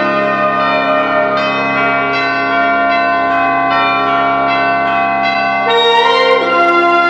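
Film score music of sustained, bell-like ringing tones, with new chords struck about every second or so. A louder, higher melodic line enters near the end.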